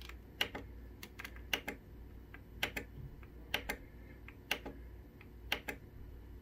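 Sharp clicks of a 3D-printer LCD controller's rotary encoder knob being turned and pressed to step through menus, mostly in quick pairs about once a second, over a low steady hum.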